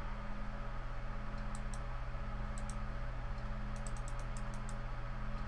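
Light computer mouse and keyboard clicks: a pair of clicks about one and a half seconds in, another pair near the middle, and a quick run of several about four seconds in, over a steady low electrical hum.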